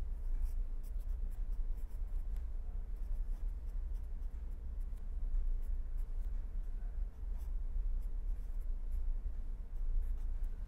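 A pen writing on paper in short, irregular strokes, over a steady low hum.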